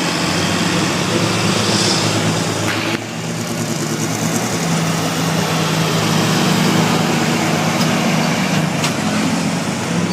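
Loud engine of a competition pulling vehicle running steadily, with a brief sudden drop in level about three seconds in before it carries on.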